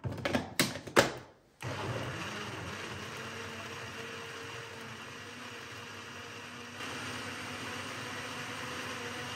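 A few knocks and clicks, then about a second and a half in a Philips countertop blender's motor starts and runs steadily, pureeing celery, cucumber, apple and parsley in water into a juice. It gets a little louder near the end.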